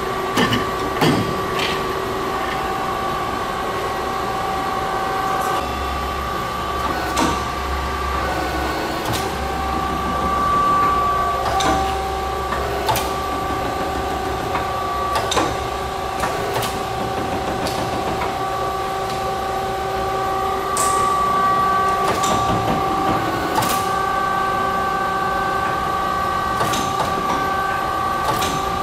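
1973 Warner & Swasey #5 ram-type turret lathe running with a steady hum of several tones, broken by scattered sharp clicks and clunks as its ram turret and levers are worked.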